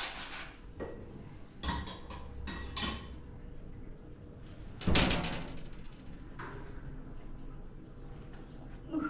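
A few light household knocks and bumps, with one louder thump about five seconds in.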